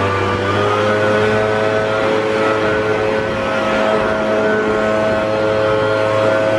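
Gas backpack leaf blower running steadily, blowing air over a wet zero-turn lawn mower.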